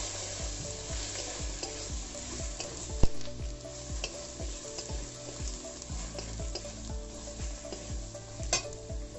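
Spatula stirring and scraping spiced onion-tomato masala around a metal kadai, over a steady sizzle of frying in oil: the masala is being fried down. Short scrapes and knocks come about one to two a second, with a sharper knock about three seconds in.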